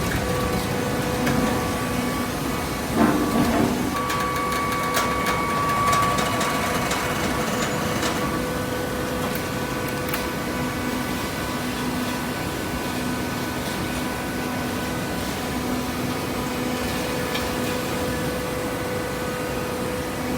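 Cardboard baler machinery running with a steady hum and a fixed whine, and a brief rattle about three seconds in.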